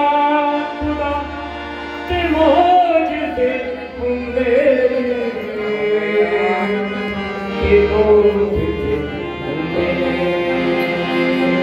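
A live devotional song: men singing, with a harmonium holding steady chords and a tabla beating deep low strokes now and then.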